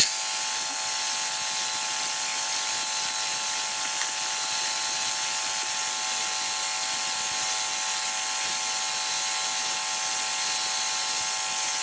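A steady electronic hiss and buzz with several fixed tones in it, and one faint click about four seconds in.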